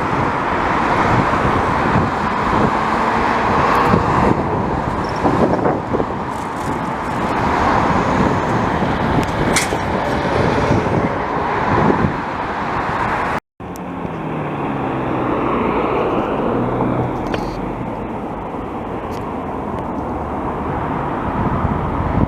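Jet airliner engines, a loud steady roar as a plane passes close by. The sound cuts out for a moment about halfway through, then comes back with slowly sweeping tones as an aircraft moves overhead.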